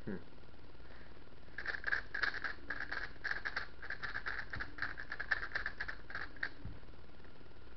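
New GAN 356 S V2 Advanced plastic speedcube being turned quickly by hand: a fast run of clicks and clacks from its layers, starting about a second and a half in and stopping near the end.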